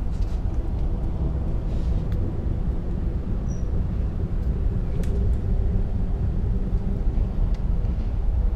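Amtrak Empire Builder sleeping car running along the track, heard from inside the car: a steady low rumble of wheels on rails with a faint hum and a few light clicks.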